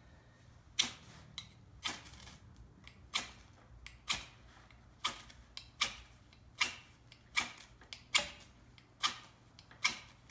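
A small ferrocerium fire steel scraped again and again with the 90-degree spine of a knife, about a dozen sharp rasping strikes roughly one a second, throwing sparks onto pine feather-stick tinder that has not yet caught.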